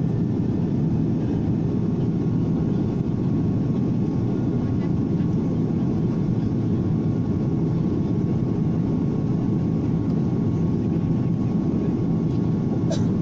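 Airliner cabin noise in flight: a steady, even hum of engines and rushing air, strongest in the low range, with a faint steady tone above it and a small click near the end.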